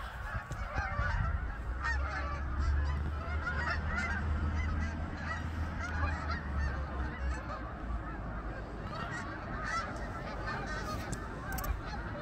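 A large migrating flock of Canada geese flying overhead in V formations, many birds honking at once in a continuous, overlapping chorus.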